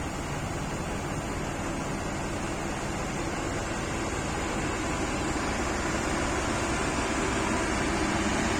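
Heavy diesel machinery running steadily under a broad hiss of rain, growing a little louder toward the end.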